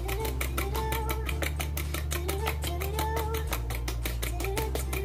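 Metal spoon beating eggs in a glass bowl: quick, regular clicks of metal on glass, about six or seven a second, over background music with a steady bass line and a melody.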